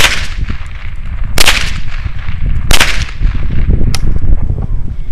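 Three sharp shots from a .22 semi-automatic rifle, about one and a half seconds apart, followed by a fainter click about four seconds in.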